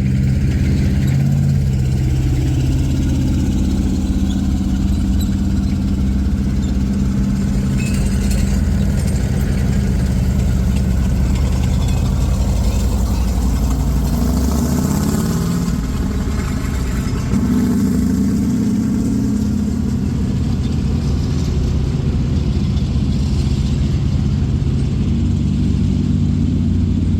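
An M3A1 Stuart light tank's engine running as the tank drives. The engine note rises and falls with the throttle through the middle stretch.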